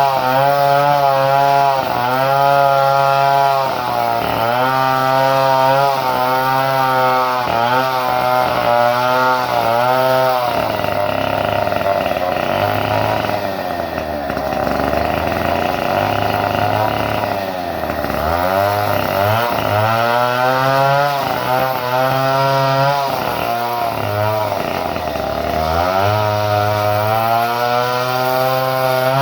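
Two-stroke chainsaw engine being revved in quick repeated blips, about one a second, then held at high speed for several seconds before the revving resumes; the saw is running on a modified ignition.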